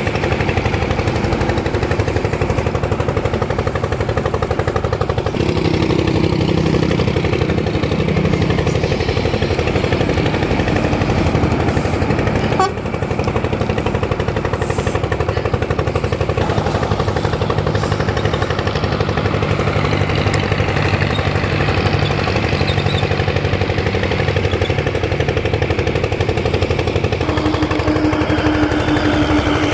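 Heavy diesel trucks and a bus running and passing close by on a highway: a loud, steady, rapid engine clatter, with a steady pitched tone over it near the end.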